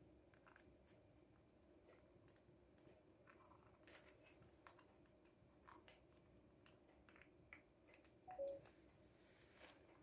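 Near silence with faint, scattered clicks and taps of a grey parrot's beak and claws handling a wooden honey dipper and a small brass cup, and one brief soft squeak about eight and a half seconds in.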